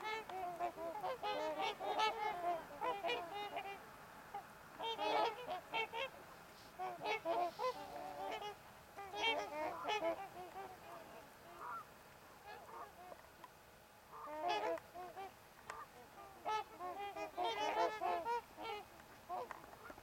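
A flock of swans calling, many birds at once, the calls overlapping in bunches every second or two with short quieter spells between.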